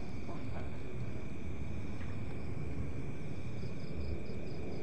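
Night insects, crickets among them, calling in a steady high chirring with a pulsing rhythm, over a steady low rumble.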